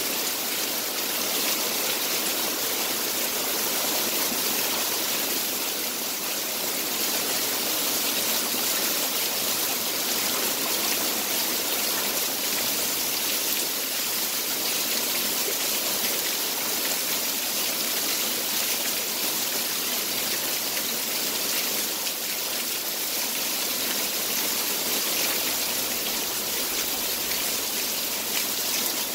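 Heavy rain from a summer thunderstorm falling steadily, an even hiss that holds at one level throughout.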